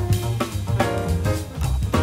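Jazzy background music with a drum kit keeping a steady beat under held horn-like notes.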